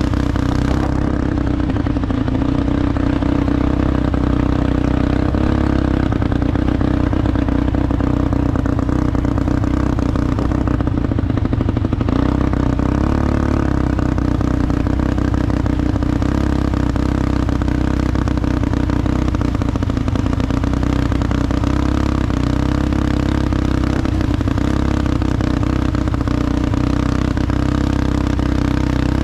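ATV engine running at steady speed with a rattling clatter, its pitch drifting a little up and down.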